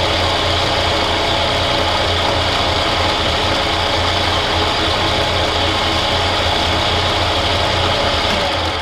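Bridgeport-clone milling machine running steadily while drilling a hole in UHMW plastic, with a strong low hum and a high whine. The machine starts winding down near the end.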